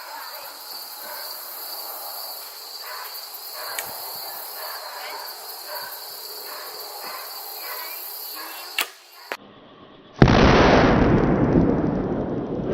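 Crickets and insects drone steadily, a sharp crack comes near nine seconds, and about ten seconds in an arrow's explosive practice head detonates in a foam target with a loud blast that dies away over a couple of seconds.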